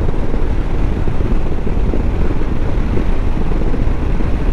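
KTM 390 Adventure's single-cylinder engine and exhaust running steadily at a cruise of about 62 km/h, mixed with wind and road noise: a soothing exhaust note.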